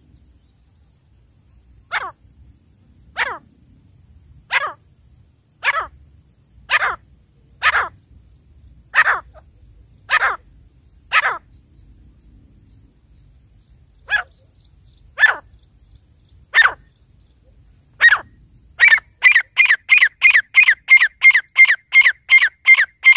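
Grey francolin calling: loud single calls that slide down in pitch, about one a second. After a pause the calls start again and quicken, and near the end they break into a fast run of two to three calls a second.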